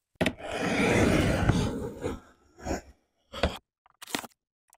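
A box cutter slitting the packing tape on a cardboard box: a click as the blade goes in, one long slit of about two seconds, then three short cuts.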